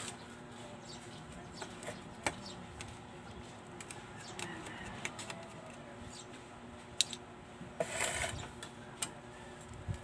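Small sharp clicks and taps of plastic and metal parts as a disassembled smartphone is handled on a hard tabletop. The loudest click comes about seven seconds in, followed by a brief scrape.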